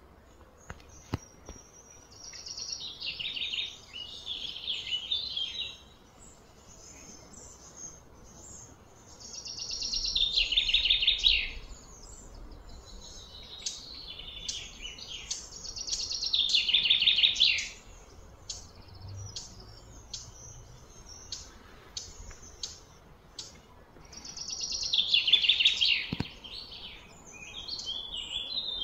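A bird singing: four loud phrases a few seconds apart, each a rapid high trill falling in pitch and lasting two to three seconds, with short scattered chirps between them.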